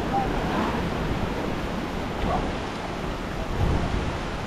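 Steady rush of sea surf, mixed with wind buffeting the microphone.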